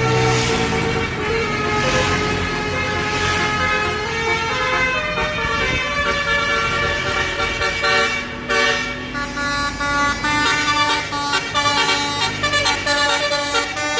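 Bus's Basuri musical 'telolet' air horn playing a tune, its tones switching in steps. In the last few seconds it turns to quick repeated toots.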